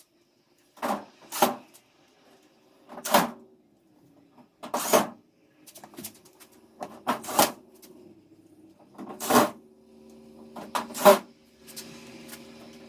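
About ten sharp knocks on washing machine parts, irregularly spaced and several in quick pairs, as the machine's fan is fitted back into place. A faint steady hum comes in near the end.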